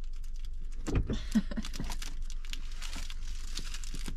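Plastic film wrapper of a convenience-store tuna mayo sushi sandwich crinkling and tearing as it is peeled off by hand, in irregular crackles with a few louder ones about a second in.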